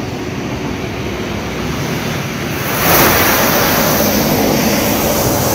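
Steady rushing noise of a swollen river in flood, growing louder and hissier about three seconds in.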